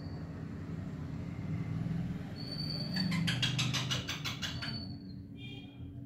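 Young green parakeet calling: a thin high whistle, then a quick run of about ten sharp chattering calls in the middle, and a shorter call near the end. Under it runs a steady low hum.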